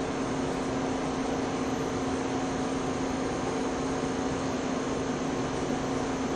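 Steady machine hum and hiss of running lab equipment, with a constant mid-pitched tone.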